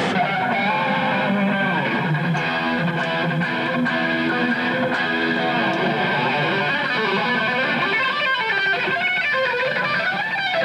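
Electric guitar playing: long held notes, then notes bent up and down in the second half.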